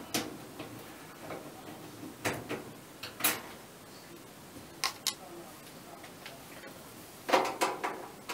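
Scattered light clicks and knocks of metal tools and parts as a screwdriver works on the dryer's cabinet and door screws, with a cluster of louder knocks near the end.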